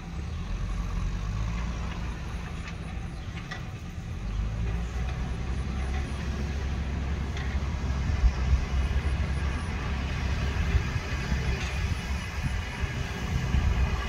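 JCB backhoe loader's diesel engine working under load as it pushes soil with its front bucket: a steady low rumble that grows louder about four seconds in.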